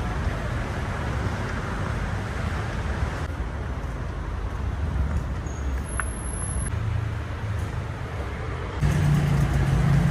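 City street traffic: a steady wash of passing vehicles and engines. About nine seconds in, a nearby engine comes in louder with a steady low drone.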